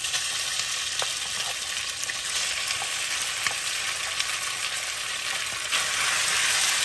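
Marinated beef slices sizzling in hot oil in a frying pan, with scattered small pops, as the meat is pushed around with a spatula. The sizzle grows louder about six seconds in.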